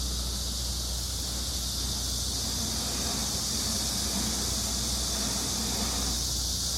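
Steady hiss of the stream's flowing water, with a low, even rumble of city traffic beneath it.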